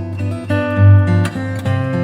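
Background music led by acoustic guitar, with a strong bass line and chords changing about every half second.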